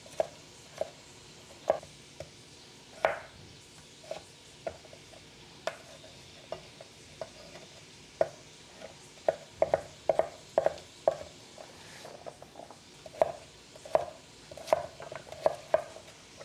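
Kitchen knife cutting potatoes on a cutting board: irregular knocks of the blade hitting the board, spaced out at first, then in quick runs of several strokes.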